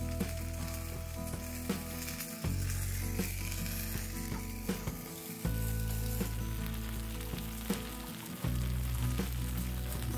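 Butter and tortilla wraps sizzling steadily on the hot ribbed plate of an electric contact grill, under background music whose bass notes change every few seconds.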